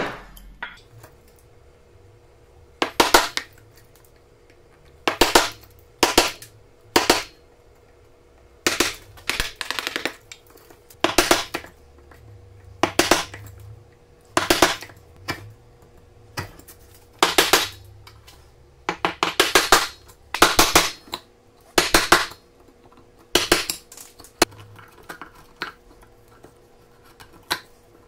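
Mallet striking a chisel chopping waste out of a mortise in quartersawn beech: sharp raps in short clusters, one cluster every second or two.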